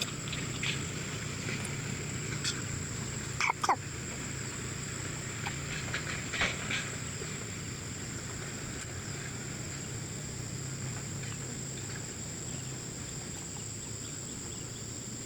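Steady high-pitched drone of insects such as crickets, with a low background hum and a few short chirps or clicks, the loudest about three and a half seconds in.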